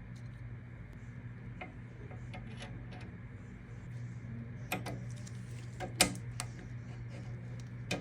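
Scattered small metallic clicks and taps from hand work on a machine, with the sharpest click about six seconds in, over a steady low hum.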